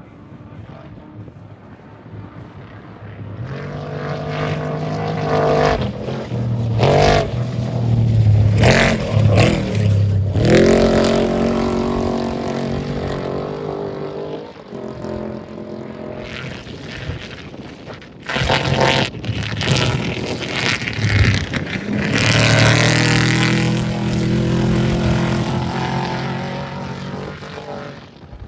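Off-road race vehicles' engines passing at speed, the engine note climbing and falling as they accelerate and shift. There are two loud passes, one peaking in the first half and another in the second.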